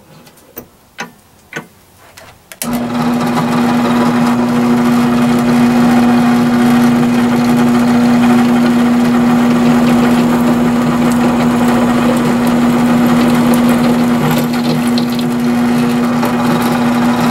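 A few light clicks of the drill press vise being handled, then the benchtop drill press motor switches on about three seconds in and runs with a steady, loud hum.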